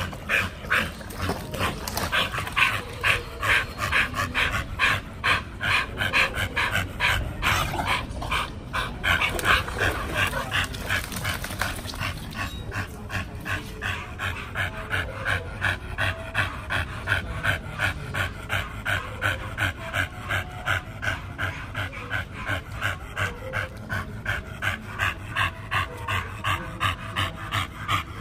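Pit bull panting hard and steadily after swimming, about two to three breaths a second.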